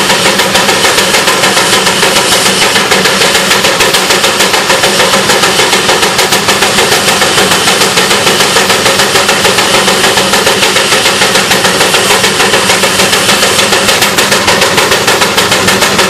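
Steam traction engine running while standing still, its exhaust chuffing in a steady, even beat over a continuous hiss of steam.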